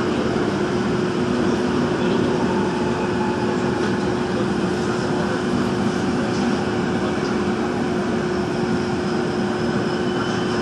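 Daejeon Metro Line 1 subway train running, heard from inside the carriage: a steady rumble of wheels and running gear with a constant hum.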